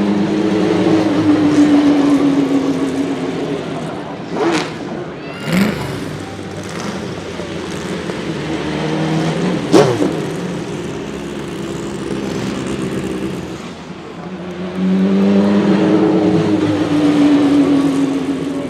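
Naturally aspirated racing-car engine running loud with its pitch falling, twice, as the car draws away. In between come short sharp rises and falls in pitch, the sharpest about ten seconds in and the loudest moment, like a fast pass-by.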